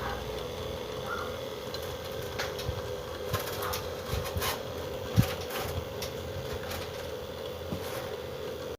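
Steady hum of an air conditioner running, with scattered light clicks and knocks over it.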